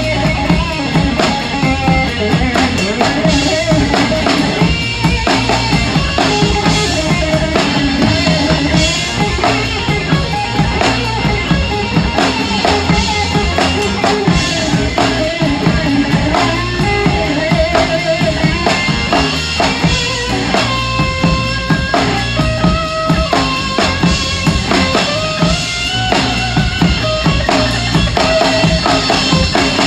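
Rock drum kit played live in a trio's song, with a steady run of bass drum, drum and cymbal strokes under the rest of the band. The kit has a 26-inch bass drum, a 14-inch rack tom, 16- and 18-inch floor toms, 16-inch hi-hats and 20- and 24-inch ride cymbals.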